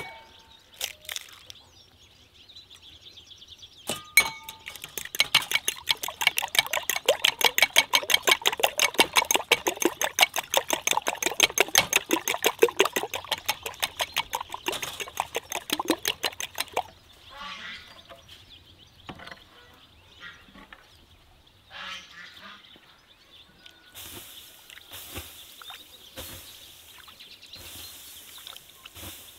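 An egg is tapped against a glass bowl with a short clink and ring. Then the eggs are beaten in the glass bowl: a fast, even run of clinks for about twelve seconds, followed by a few scattered small knocks.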